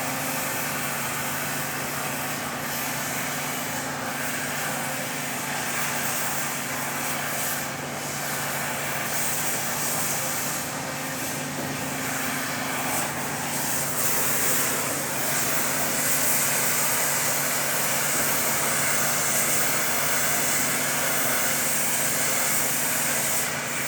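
Steady machinery hum with a strong, even hiss over it, holding unbroken and swelling slightly about two-thirds of the way through.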